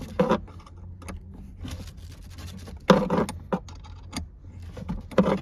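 Metal clinks, clicks and scrapes of a wrench working the positive battery terminal clamp loose and lifting it off the post. The clinks come in irregular clusters, the loudest about three seconds in.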